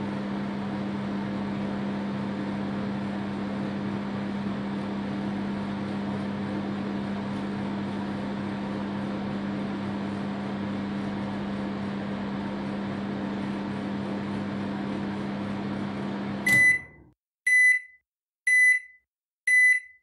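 Microwave oven running with a steady hum, which cuts off about three-quarters of the way through as the cycle ends. Then the end-of-cycle signal: four high single-pitched beeps about a second apart.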